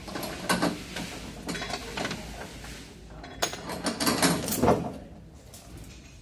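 Irregular metallic clinks, scrapes and rattles of hand tools working on a Toyota Camry door, coming in bursts about half a second in, around two seconds in, and again for about a second and a half from three and a half seconds.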